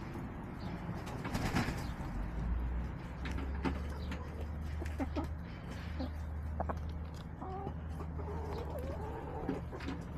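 Backyard hens making soft, short clucks and croons while they forage, with sharp pecking clicks in the straw. There is a brief rustle about a second and a half in, and a steady low hum underneath.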